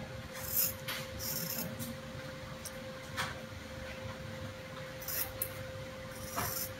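Scissors snipping through a rubber cat-whisker bowstring silencer: several short, separate cuts, over a faint steady hum.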